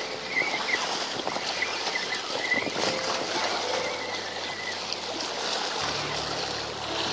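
Steady hiss of wind and moving water at the seashore, with a low steady hum coming in near the end.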